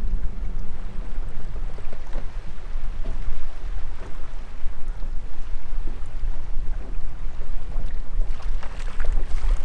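Strong wind buffeting the camera microphone, a steady low rumble, with a patter of light clicks near the end.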